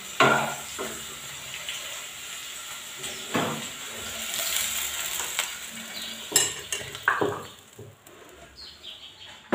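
A metal spoon and a non-stick frying pan knocking and scraping against a white bowl: about four separate clinks, with a light hiss midway, as fried cauliflower florets are slid from the pan into the bowl.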